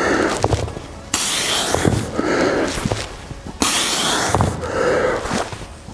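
A man breathing hard while exercising. Forceful exhales start sharply about a second in and again about three and a half seconds in, with quieter breaths in between.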